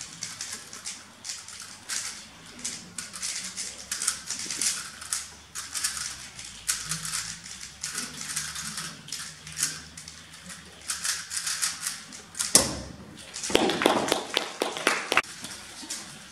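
Rapid clicking of a 3x3 speedcube being turned fast during a timed speedsolve, going on for about twelve seconds, then one loud sharp knock.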